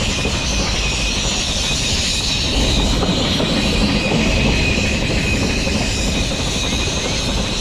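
Nilgiri Mountain Railway train running along the track: a steady rolling rumble of wheels on rails with a thin, high, steady wheel squeal.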